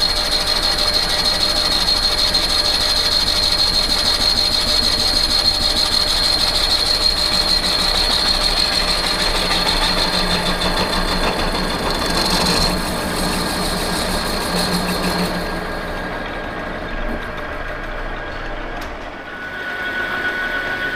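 Engine lathe turning a shaft's Eutalloy-welded bronze-nickel build-up, the tool taking a heavy cut, with a steady high whine over the running of the machine. About sixteen seconds in the high whine stops, leaving the lathe running more quietly.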